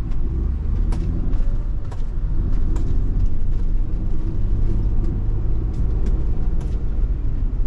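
Road noise inside a moving car: a steady low rumble of engine and tyres, with a few faint clicks.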